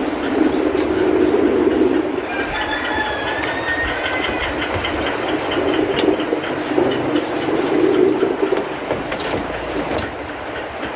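Daytime forest ambience: a steady high-pitched insect drone, a few bird chirps about two to three seconds in, and a louder low droning noise that swells and fades twice.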